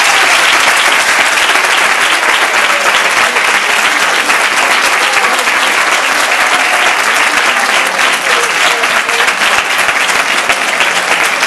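Audience applauding steadily, many hands clapping at once, with a few voices faintly heard through it.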